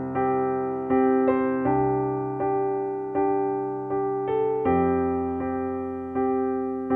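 Background piano music: a slow, even series of chords struck about every three-quarters of a second, each left to fade.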